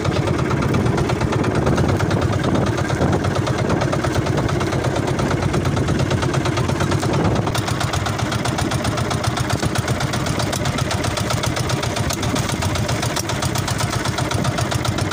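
Outrigger fishing boat's engine running steadily while the boat is underway, with a fast, even firing rhythm that changes character slightly about halfway through.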